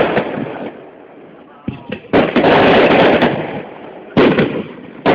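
Aerial firework shells bursting one after another, several sharp bangs a second or two apart, each followed by about a second of dense noise that fades away, heard through a phone's microphone.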